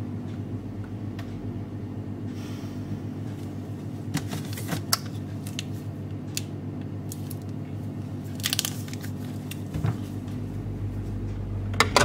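Food containers and jars being handled in an open refrigerator: scattered light clicks and rustles, with a longer rustle about eight and a half seconds in, over a steady low hum.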